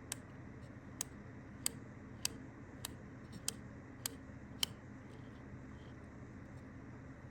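A run of eight faint, sharp clicks, evenly spaced at about three every two seconds, that stop a little past halfway, over a low steady hum.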